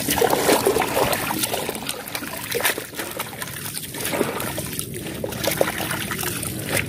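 Water trickling and splashing off a large scoop net full of wet, dead water grass as it is handled, with many small irregular clicks and crackles.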